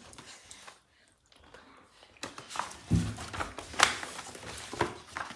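School textbooks and covered notebooks being handled and sorted: covers sliding and rustling against each other, starting about two seconds in, with a soft thump and a few sharp slaps as books are set down on the pile.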